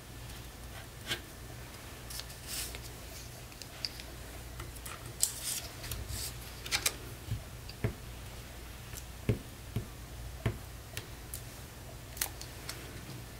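Paper crafting handling sounds: scattered rustles of paper cutouts and light taps and clicks on a cutting mat and glue stick, over a faint steady low hum.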